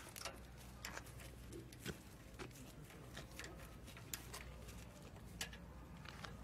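Faint, irregular light clicks and taps of metal parts and a hand tool being handled during assembly, over a low steady hum.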